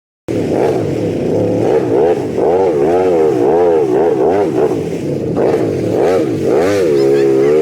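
A vehicle engine revving up and down over and over, its pitch rising and falling about twice a second, then holding steadier near the end.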